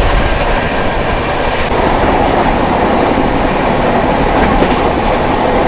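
Express passenger train running at high speed, about 130 km/h: a loud, steady rush of wheel, rail and air noise.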